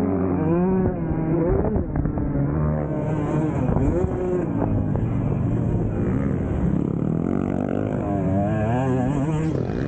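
Husqvarna TC 125 two-stroke dirt bike engine being ridden hard on a motocross track, its pitch climbing and dropping sharply several times as the rider works the throttle and gears.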